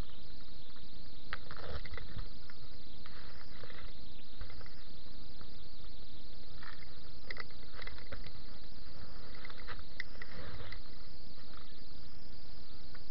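Steady high hiss, with scattered short clicks and a few brief, faint, muffled voices.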